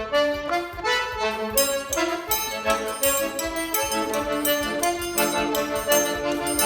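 Forró pé de serra music led by an accordion (sanfona) playing a quick melody over a steady percussion beat.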